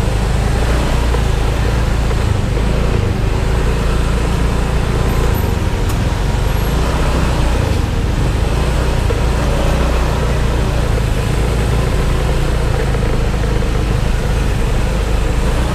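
Motorbike engine running with surrounding road traffic, a steady low rumble that holds even throughout.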